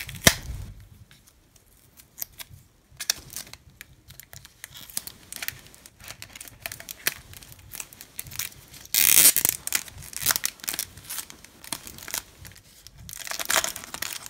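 Clear plastic wrap being picked at and peeled off a playing-card box, crinkling and tearing in scattered crackles and short bursts. The loudest bursts come about nine seconds in and near the end.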